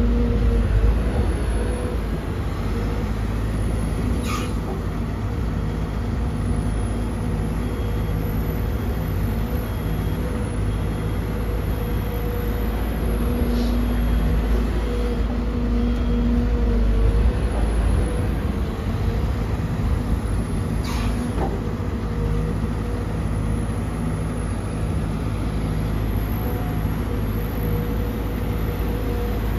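Sumitomo SH210-6 hydraulic excavator's diesel engine running steadily under working load, its note dipping briefly now and then. Two sharp knocks stand out, one about four seconds in and one about twenty-one seconds in.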